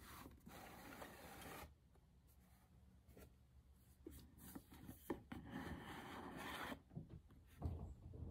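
Faint rubbing and scraping of cardboard packaging being handled: a rigid gift box slid out of its shipping box and its snug lid pulled off, in two stretches of scraping with a few light taps and a dull bump near the end.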